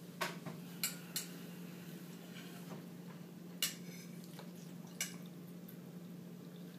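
Metal fork clinking against a ceramic bowl: five short sharp clinks, three within the first second or so, then one near the middle and one a little later. A steady low hum runs underneath.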